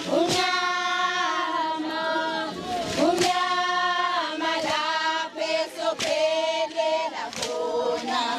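A group of women singing a traditional Zulu song together in chorus, in long held notes with short breaks between phrases.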